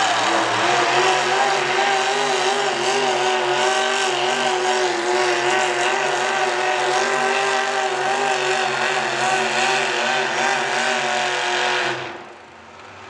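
Small-block V8 of a mini rod pulling tractor running at high, nearly steady revs through open exhaust stacks under full load while dragging a weight-transfer sled. The engine note wavers slightly, then drops away sharply near the end as the pull finishes.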